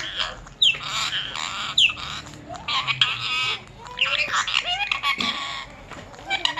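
Pet parrot squawking and chattering in a string of harsh calls, with two sharp downward-gliding whistles in the first two seconds.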